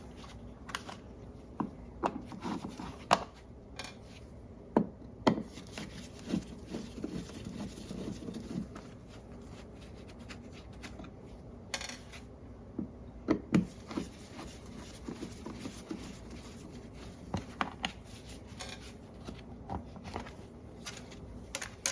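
A screwdriver working the screws of a wall light switch's cover plate, with scattered small clicks, scrapes and knocks as the plate is unscrewed and taken off.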